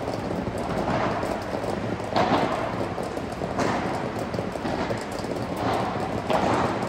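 Padel rackets striking the ball back and forth in a rally: sharp knocks, about five of them, roughly one every second or so.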